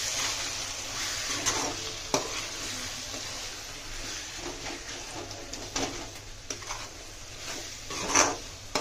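Metal spatula stirring and scraping a wet onion-and-spice masala around a metal kadai, over a steady sizzle of frying, with a louder scrape near the end.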